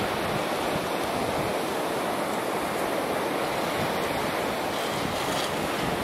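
Steady wash of ocean surf with wind buffeting the microphone.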